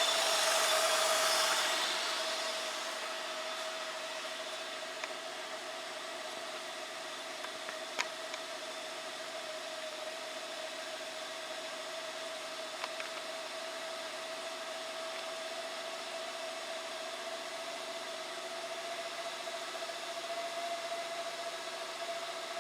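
Honda Odyssey 3.5-litre V6 idling steadily, a little louder for the first couple of seconds before it settles. It runs without misfire hiccups at this point, with the spark plug and coil swapped between cylinders 3 and 4.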